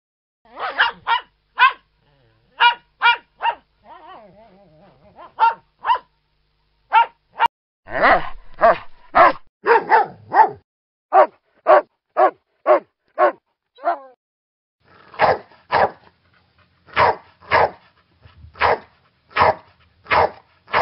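Dogs barking in three bouts. The Jack Russell Terrier barks in quick pairs and triplets, with a brief quiet whimper about four seconds in. From about eight seconds the Labrador retriever gives a fast run of barks. From about fifteen seconds the Pit Bull gives fuller barks, evenly spaced in pairs.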